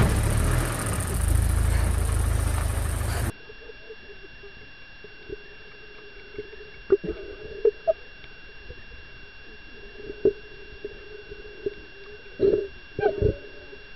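A vehicle engine runs loudly for about three seconds, then cuts off abruptly into quieter underwater sound: a faint steady hum with scattered short, low knocks and calls, the loudest cluster near the end.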